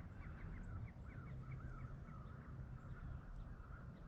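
Distant geese calling: a quick run of short, repeated honks in the first second, then a faint, wavering chorus. Low wind rumble underneath.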